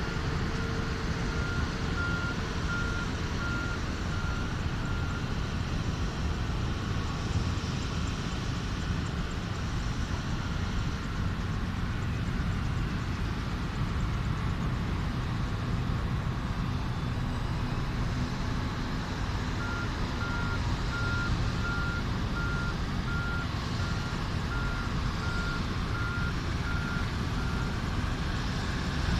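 A vehicle's reversing alarm beeping steadily about twice a second over a constant engine and traffic rumble; the beeping stops about five seconds in and starts again about twenty seconds in.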